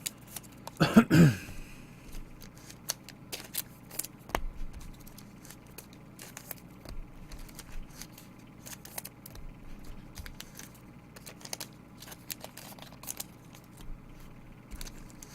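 Trading card packs and cards being handled: scattered clicks, crinkles and tearing of foil wrappers. A short vocal sound comes about a second in and is the loudest moment.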